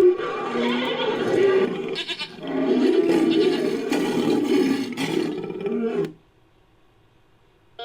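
Designed creature call built from goat and sheep bleats layered with a roar. There are two long calls: the first breaks off about two seconds in, and the second cuts off about six seconds in.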